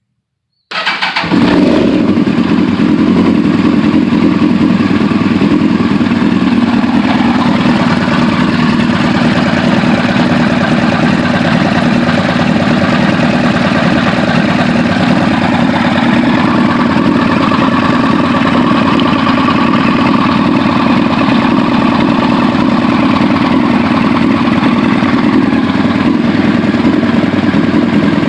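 2001 Yamaha R1's inline-four engine starting about a second in and then idling steadily, with a noise in the running that the owner takes for a valve knock from the valve cover.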